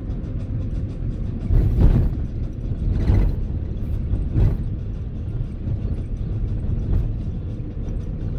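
Road noise heard from inside a moving vehicle: a steady low rumble of engine and tyres, with three brief louder whooshes about two, three and four and a half seconds in, from traffic passing alongside.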